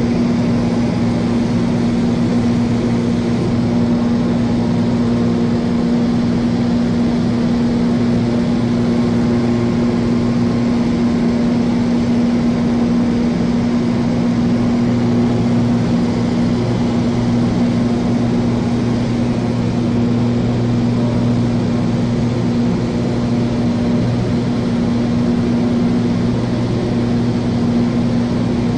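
Cessna light aircraft's engine and propeller running steadily in flight, with a constant pitch.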